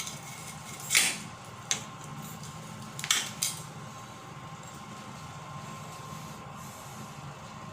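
Four short clinks and knocks of hard objects being handled in the first three and a half seconds, over a steady low hum.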